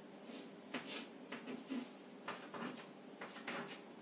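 Chalk scratching and tapping on a blackboard as lines are drawn: short, irregular strokes, roughly three a second.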